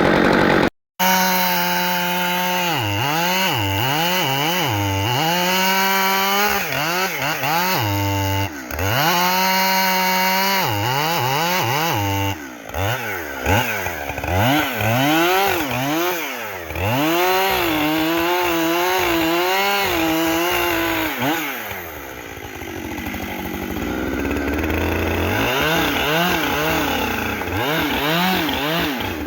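Two-stroke chainsaw running and cutting wood, its engine held at full throttle and repeatedly dropping off and revving back up. The sound cuts out completely for a moment about a second in.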